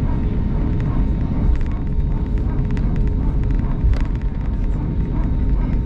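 Cabin noise of an Airbus A220 taxiing: a steady low rumble from its Pratt & Whitney PW1500G geared turbofans at low thrust, with a faint steady hum tone and light scattered clicks and rattles.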